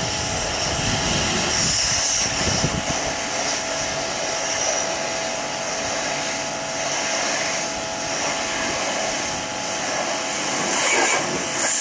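Pressure washer running steadily, a motor hum under the hiss of its spray jetting from the lance onto plastic pool-enclosure panels.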